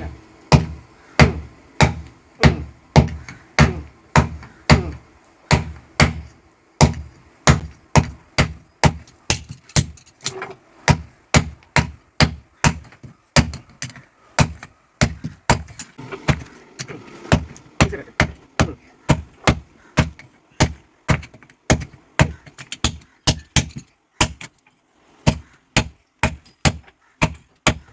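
Blacksmith's hand hammer forging an axe head on an anvil: steady blows, about one and a half to two a second, with a few brief pauses. Some blows carry a thin, high ring.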